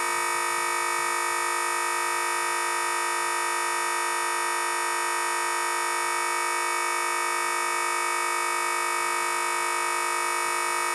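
Train horn audio frozen into one steady, unchanging buzz: a tiny slice of sound looping over and over, the stuck-audio glitch of a computer crashing to a blue screen.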